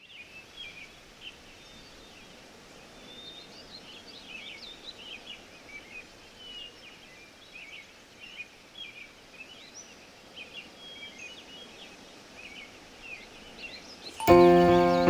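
Small birds chirping and twittering in many short, quick calls over a faint outdoor hiss. Near the end, loud music with held notes starts abruptly and drowns them out.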